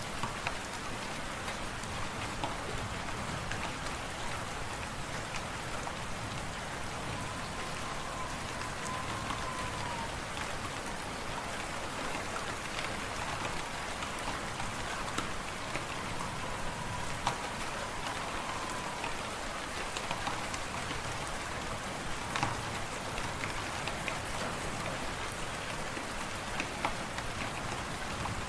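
Wood fire crackling in a fireplace: a steady hiss scattered with frequent sharp pops. A faint wavering whistle, like wind, comes through twice.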